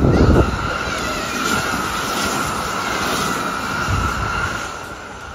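Kintetsu Urban Liner Next (21020 series) electric limited-express train passing close by without stopping: a sudden loud rush as the front goes by, then steady running noise with a high whine that fades near the end.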